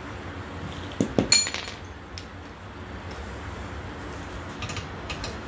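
Three sharp metallic clinks about a second in, ringing briefly, as metal parts knock together during golf-cart front-end work; a few lighter clicks follow near the end.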